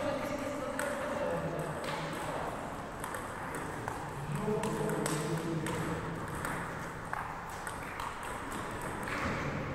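Table tennis rally: a celluloid-type ping-pong ball clicking off rubber bats and bouncing on the table, with sharp ticks coming irregularly about once a second.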